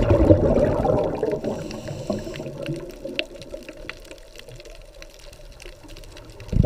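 Underwater sound of a scuba diver's exhaled regulator bubbles, a low gurgling rush that fades away about three seconds in and starts again suddenly near the end with the next breath out. Faint scattered clicks sound in between.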